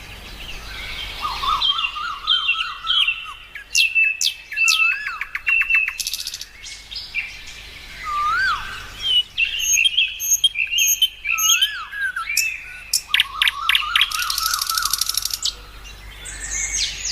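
Birds singing and chirping: whistled notes that rise and fall, coming back every few seconds, mixed with quick trills and sharp high chirps.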